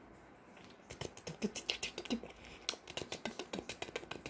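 Kittens' claws scratching and catching on bedding and clothes as they play-fight, a rapid run of small scratchy clicks starting about a second in.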